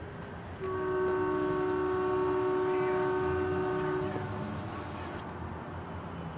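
Train horn sounding one long blast of about three and a half seconds, a chord of several notes held steady, over a steady hiss.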